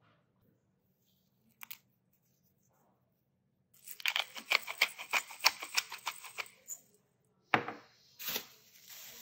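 Hand-twisted pepper mill grinding black pepper: a quick run of crunchy clicks for about three seconds. A single sharp knock follows near the end.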